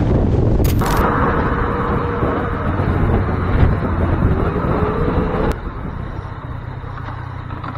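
Road vehicle noise: engine running with wind and road rush, and a faint engine tone rising about four seconds in. The sound changes abruptly about a second in and again past five seconds.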